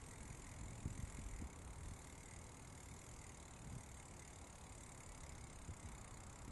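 Steady rushing noise of riding a bicycle, picked up by a front bike-mounted camera's microphone: wind and tyre noise on a concrete path, with a few low bumps about a second in.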